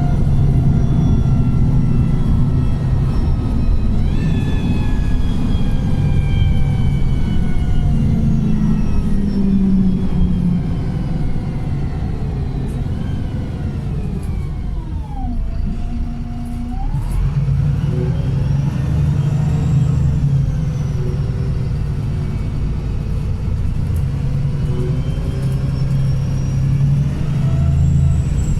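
Wright Pulsar single-deck bus running: a steady engine rumble with a drivetrain whine that jumps up about four seconds in, falls slowly as the bus slows to its lowest point around the middle, then rises again as it picks up speed.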